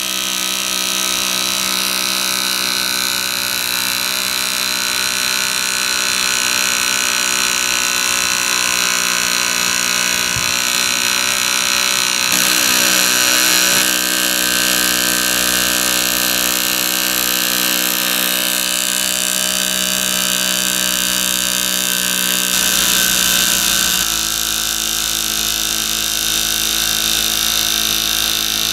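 Model marine steam plant's small twin-cylinder steam engine running fast and steady under steam, a continuous hum of several tones whose pitch shifts slightly about halfway through and again near the end.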